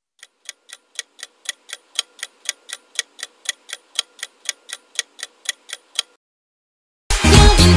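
Countdown-clock ticking sound effect, about four sharp ticks a second for some six seconds, then it stops. After a second of silence, a pop song starts abruptly and loud near the end.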